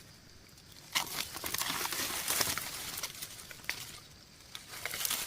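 Rustling and crackling of forest leaf litter being disturbed, starting about a second in and dying down past the middle, with a few more crackles near the end.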